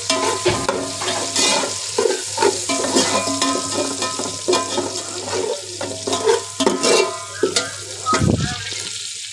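Cumin and ginger-garlic sizzling in hot oil in a pan while a spatula stirs them, its repeated scrapes and clacks against the pan, with a low thud about 8 seconds in.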